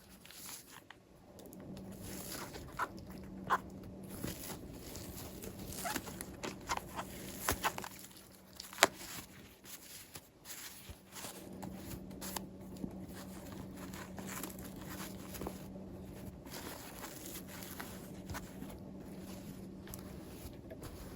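Toy and packaging being handled: scattered small clicks and rustles, with a few sharper ticks, over a faint steady hum.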